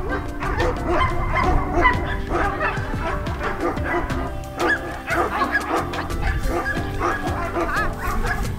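Several Shiba Inus yipping and whining in short, high calls as they crowd a person handing out treats, over steady background music.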